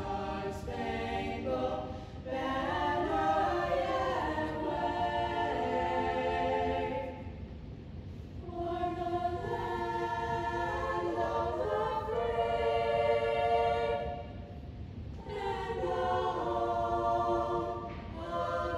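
Women's choir singing unaccompanied in long held chords, with short breaks between phrases about seven and fourteen seconds in.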